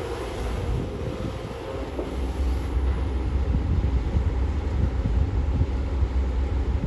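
Engine of heavy construction machinery running with a steady low rumble.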